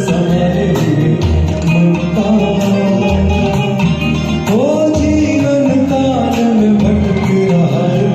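Karaoke singing over a recorded backing track with a steady beat; about halfway through, a note slides up and is held for a couple of seconds.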